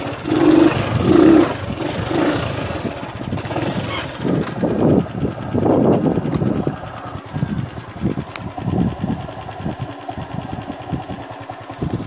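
Motorcycle engine running at idle or low speed, with a steady low chugging that swells irregularly.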